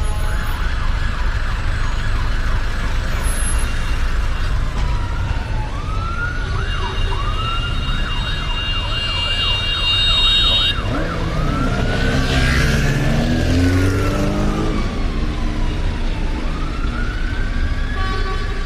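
Emergency-vehicle sirens: slow rising and falling wails, with a rapid yelp from about a third of the way in. They sound over a steady low rumble of traffic, and a vehicle passes close by about two-thirds through.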